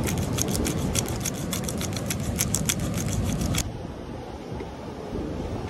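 Plastic bag being handled: a quick, irregular run of crinkles and crackles that stops abruptly a little past halfway, leaving wind and surf.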